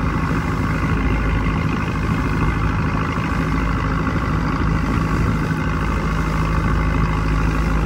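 A fishing boat's engine running steadily at an even speed.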